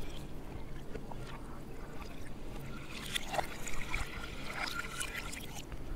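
Lukewarm milk, cream and all, poured from a steel vessel into a steel pot of starter curd to set it: a quiet, steady pouring sound with a few faint ticks.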